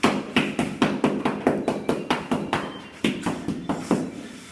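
Rapid, even tapping on ceramic tile, about five knocks a second, the way tiles are tapped down into mortar to bed them. The tapping eases off near the end.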